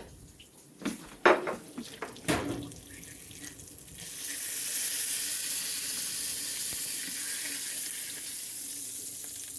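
A few knocks and clatters, then a kitchen faucet turned on about four seconds in, water running steadily into the sink.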